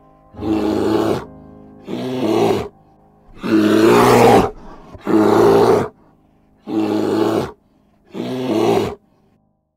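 Black bear growling six times, each loud growl about a second long, evenly spaced with short pauses between.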